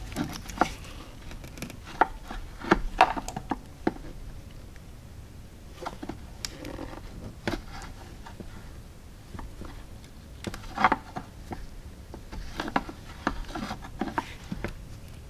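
Scattered light clicks, taps and rubbing as a hand tool and gloved hands work a rubber vacuum line off its fitting behind the throttle body. The sounds come in short clusters a few seconds apart.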